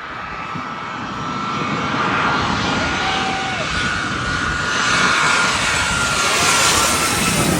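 Airplane engine noise building as an aircraft passes close by: a broad rush that swells over the first couple of seconds and stays loud, with a steady high whine running through it.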